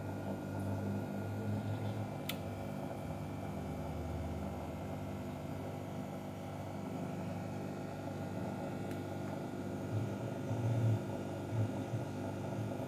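Steady low background hum, with one sharp click about two seconds in and a few soft low thumps near the end.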